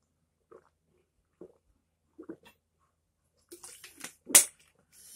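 A man gulping from a bottle: three soft swallows about a second apart, then a breathy exhale and one sharp knock a little over four seconds in.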